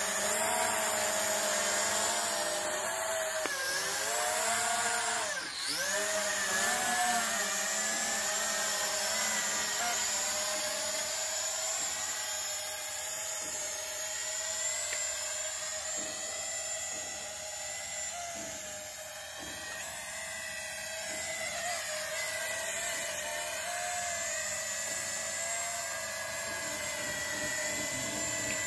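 TC-3 toy quadcopter drone in flight, its small motors and propellers whining steadily. The pitch slides up and down as the throttle changes, dropping sharply and climbing back about five seconds in.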